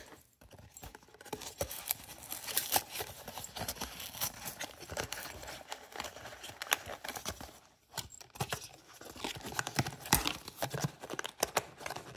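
Cardboard blind box and its wrapping being torn open and crinkled by hand, in an irregular run of rustles and sharp crackles with a brief pause about eight seconds in.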